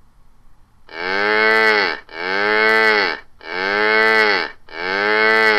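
A cow mooing four times in a row, one moo for each cow being counted. Each moo lasts about a second and rises then falls in pitch, and the four sound alike.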